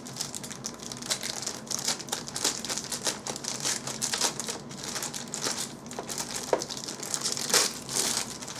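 Plastic packaging crinkling and rustling in irregular crackles as a keyboard is unwrapped and handled.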